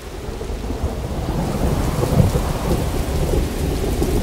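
Rain and thunder sound effect: rain swelling from light to heavy, with low thunder rumbles that are loudest about two seconds in.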